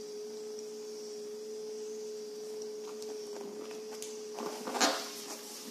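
Electric motor of a Marnur shiatsu neck and shoulder massager running at a raised intensity setting, a steady hum. A few brief rubbing knocks come about five seconds in.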